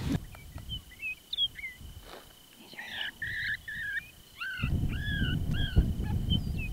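A run of short, high yelping calls that rise and fall in pitch, over a faint steady high tone. A low rumble comes in a little past halfway.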